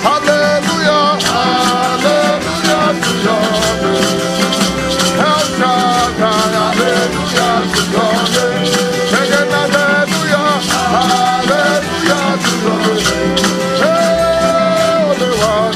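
Gospel band music with a steady, fast shaker rhythm under a sustained melody line of long held notes that bend and slide between pitches.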